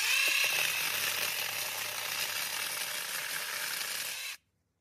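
Cordless drill driving a chainsaw attachment, its Oregon bar and chain cutting through a wooden batten. The sawing runs steadily and stops suddenly a little over four seconds in.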